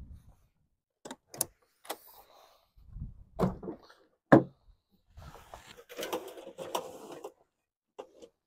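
Latches clicking and panels knocking as a truck-bed camper's rear hatch and the pickup's tailgate are opened, with a sharp clunk a little past halfway as the tailgate drops. This is followed by a metal folding step rattling and scraping as it is slid out of the bed, and two small clicks near the end.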